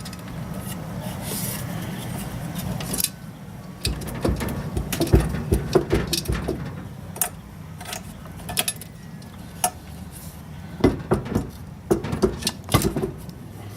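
Metal washing-machine parts being handled and fitted during reassembly: scattered clicks, clinks and knocks, with a steady rustling noise for about the first three seconds.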